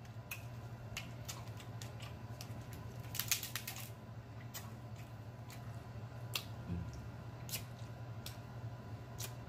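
Crab-leg shells being cracked and picked apart by hand: scattered soft clicks, with a quick run of crackling about three seconds in. A steady low hum runs underneath.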